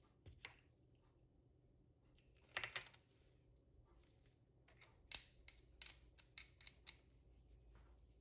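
Faint, sharp clicks and a short scraping rustle: a brief cluster of scrapes about two and a half seconds in, then a handful of separate light clicks over the next couple of seconds.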